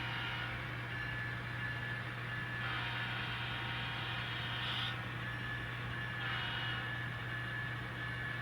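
N scale model train locomotive running along the track: a small electric motor and its wheels on the rails. There is a steady low hum under a hiss that swells and fades twice.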